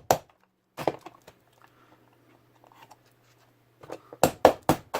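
Sharp knocks and cracks on the speaker's hard plastic parts as they are forced apart: a couple near the start, then four quick loud strikes about four seconds in.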